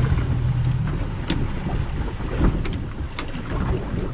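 A boat's engine hums steadily and stops about a second in, leaving wind on the microphone and water noise, with a few sharp clicks.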